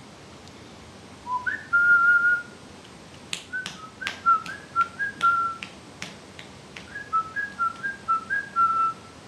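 Someone whistling. First a note slides up and is held for about a second, then come two runs of short notes stepping up and down in pitch, with several sharp clicks among the middle notes.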